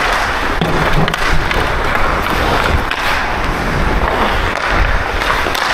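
Ice skate blades carving and scraping on the ice as a player skates, with wind rumbling on the helmet-mounted action camera's microphone and a few sharp knocks.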